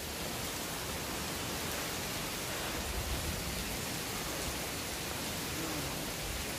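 Steady rushing hiss of water in a rocky gorge, with an uneven low rumble underneath.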